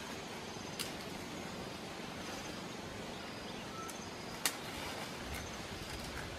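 Leaves and branches of a small tree rustling steadily as a man climbs into it, with two sharp twig snaps, one about a second in and a louder one past four seconds.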